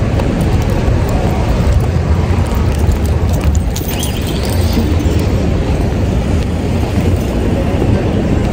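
Car running with a steady low rumble, heard from inside the vehicle.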